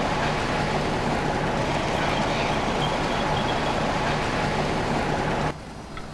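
A vehicle engine runs steadily close by, a loud even rumble. It cuts off suddenly about five and a half seconds in, leaving a much quieter background.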